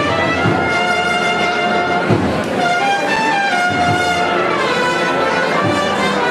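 Brass band playing a Holy Week processional march: held brass notes over occasional bass drum beats.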